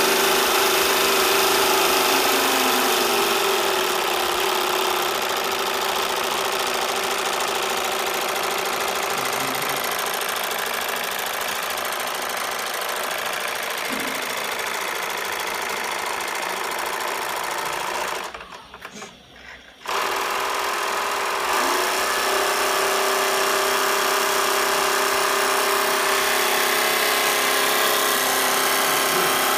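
Small model steamboat steam engine running fast and steadily with a rapid mechanical chatter and a steady hiss of steam, on a dry test out of the water. The sound falls away for about two seconds a little past the middle, then comes back suddenly.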